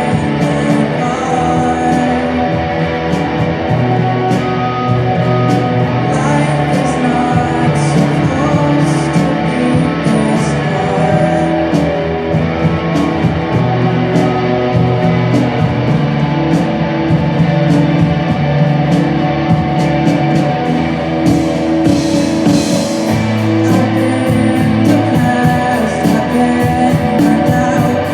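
Rock band playing a song live: drums with frequent cymbal strokes over sustained bass and guitar notes that change every few seconds.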